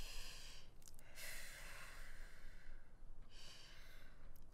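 Slow, deep breaths in and out, three long breaths: an upset, crying boy being talked down and calmed.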